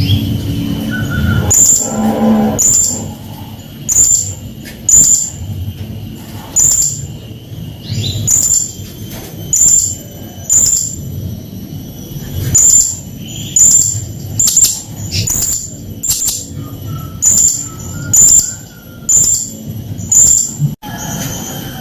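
Blue-crowned hanging parrot (srindit) calling in a harsh, agitated run of short, very high-pitched notes, about one a second, over a low background rumble.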